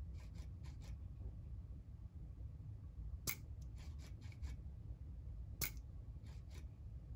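Faint, scattered sharp clicks and light taps as a small chainsaw carburetor on a pressure tester is handled, the clearest about three and five and a half seconds in, over a low room hum.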